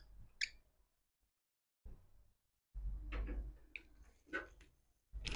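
Wire strippers removing insulation from a green-and-yellow earth wire: a few faint clicks and scrapes of the tool on the cable, with low handling rumble about three seconds in.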